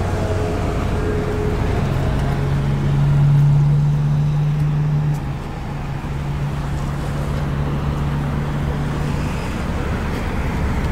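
A motor vehicle engine running, a low steady hum. It swells about three to four seconds in and eases off just after five seconds.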